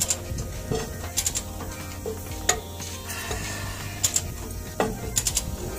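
Hand ratchet wrench clicking in short bursts as a nut is turned on a truck wheel hub stud, over a steady low hum.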